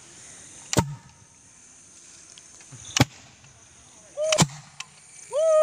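Homemade PVC-pipe party popper fuelled with body spray and lit by a lighter's spark, going off with three sharp bangs a second or two apart as it blasts out shredded gift-wrap confetti. Near the end a loud, drawn-out call rises and then holds.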